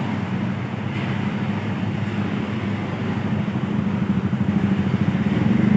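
Tour bus's diesel engine pulling uphill, a steady low rumble that grows louder near the end as the bus draws close, with a faint high whine above it.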